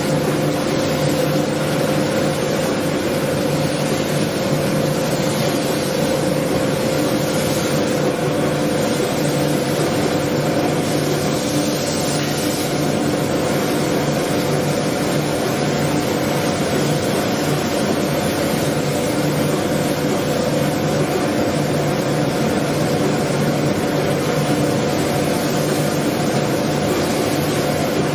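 Steady mechanical hum with a rush of air from spray-painting booth equipment, the dust-extraction system running. The sound holds at an even level, with a few constant hum tones under the noise.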